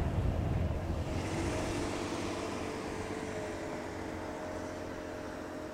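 Dust-storm wind gusting against the microphone, easing about a second in into a steady hiss with a faint steady hum underneath, slowly fading.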